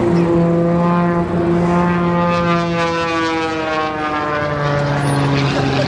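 An aircraft flying past, its loud engine drone sliding slowly down in pitch as it goes by.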